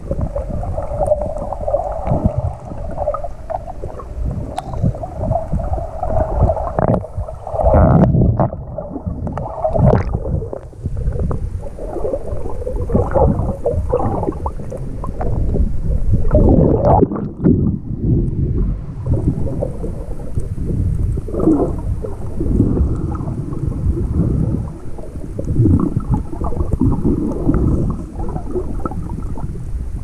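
Muffled underwater sound through a submerged GoPro Hero 5's microphone: irregular rumbling and gurgling of sea water moving around the camera.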